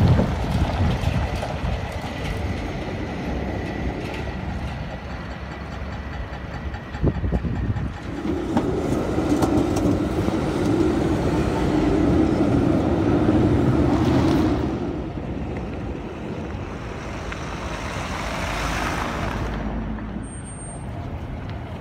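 Street traffic noise, then a tram passing close by: a steady hum from its motors and wheels rises about eight seconds in, holds for about six seconds and fades as it moves away.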